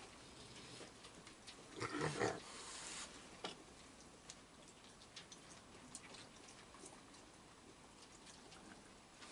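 A raccoon growls briefly about two seconds in. Faint scattered clicks follow from raccoons moving and feeding on a wooden deck.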